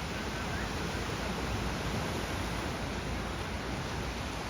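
Steady rushing noise with a low rumble underneath, even throughout with no distinct events.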